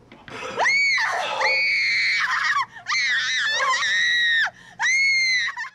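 A woman screaming in terror: four long, very high-pitched screams with short breaths between them, the third one wavering.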